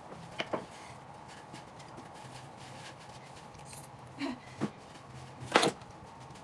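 A few scattered light knocks and clacks of objects being handled, the loudest about five and a half seconds in, over a faint steady hum.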